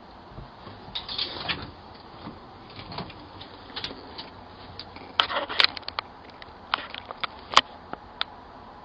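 Steady hiss from a doorbell camera's microphone, with scattered faint clicks and taps, some in quick little clusters.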